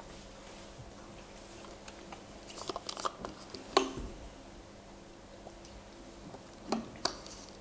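A few scattered small clicks and knocks over faint room hum: a quick cluster a little under three seconds in, a louder knock just under four seconds in, and two more near the end.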